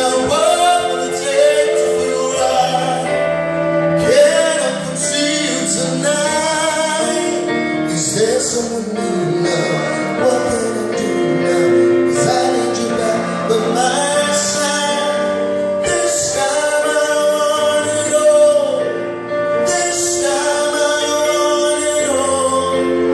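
A man singing a song into a microphone over amplified backing music.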